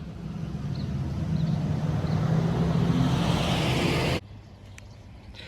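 A motor vehicle's engine and tyres, growing louder as it comes closer, then cut off suddenly about four seconds in.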